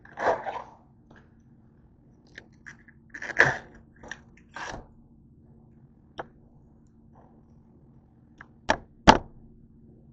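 A whole head of green cabbage being handled on a countertop: a few short rustling, crackling bursts from its leaves, then two sharp knocks about half a second apart near the end as it is set down on the counter.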